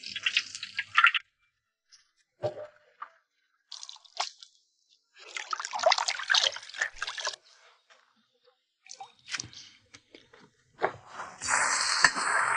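Squelching and dripping as soaked salted vegetables are wrung out by hand in a bowl of water, then, near the end, ginger, garlic and Sichuan peppercorns sizzling loudly as they hit hot oil in an iron wok. A brief sizzle of pork frying in the wok opens it.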